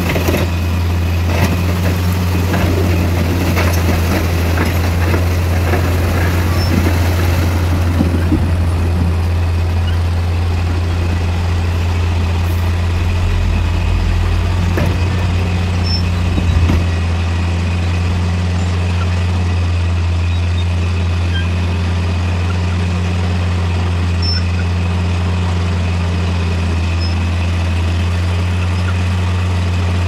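Heavy diesel engines of earthmoving machinery, a bulldozer and a dump truck, running steadily with a low hum. There is clattering over the first several seconds and a brief thump about 17 seconds in.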